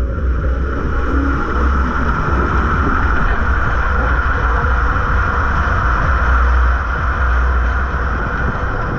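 Water rushing and a steady low rumble as a rider slides down the inside of an enclosed tube water slide.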